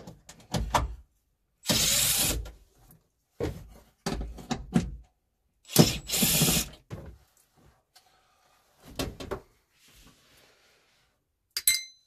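Hand work on a vehicle's rear hatch trim while its 10 mm panel bolts come out: scattered knocks and clatter of tools and plastic, two loud noisy bursts of under a second each about two and six seconds in, and a short metallic ring near the end.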